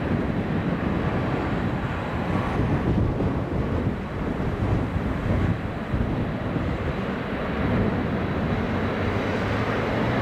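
Steady rumble of a Lufthansa Airbus A380's four Rolls-Royce Trent 900 engines as the airliner rolls out down the runway after landing, mixed with strong wind buffeting the microphone.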